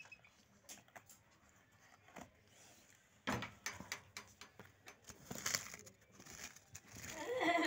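Cardboard pizza box and plastic sauce sachets being handled: scattered light clicks, then from about three seconds in a run of rustling and soft knocks as the box is shifted.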